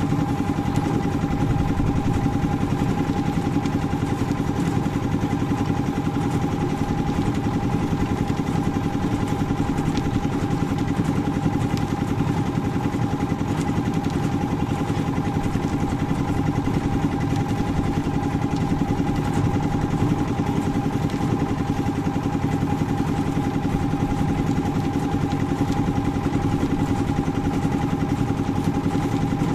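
Portable concrete mixer running steadily as it mixes concrete, its engine holding an even, unchanging pitch.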